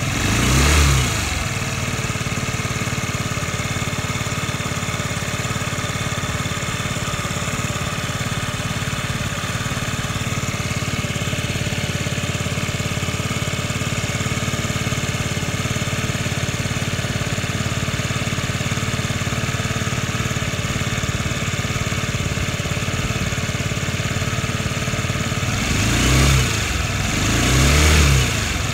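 50cc moped engine idling steadily. It is briefly revved up and back about a second in and twice near the end.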